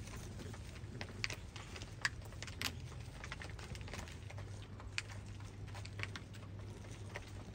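Pigeons pecking seed from a feeder tray: irregular sharp clicks and taps of beaks on grain and the tray, over a low steady hum.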